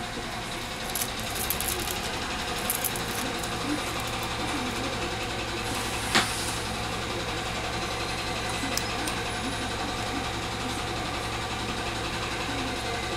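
Small clicks and scrapes of a tool and fingers picking broken display fragments and old adhesive off a smartphone's metal midframe, with one sharp click about six seconds in, over a steady low hum.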